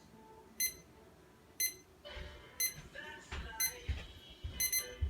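Water-powered digital alarm clock going off: short, high electronic beeps about once a second, turning into quick double beeps near the end. A faint voice and a few low thumps come through in the middle.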